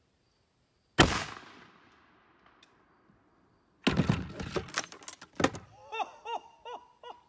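AirForce Texan .45 big-bore air rifle firing once about a second in on a helium fill of about 4,200 PSI: a single sharp report that rings away over about a second. A few seconds later comes a run of loud knocks and rattles, then a quick series of short chirps.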